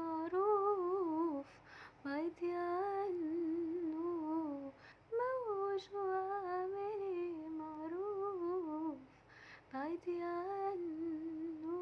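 A woman humming the song's melody with no accompaniment, in phrases of a few seconds with wavering ornaments in the pitch and brief pauses between them.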